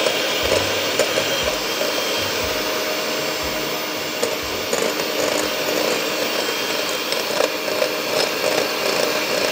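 Electric hand mixer running steadily, its beaters working butter in a bowl, with a few short clicks along the way.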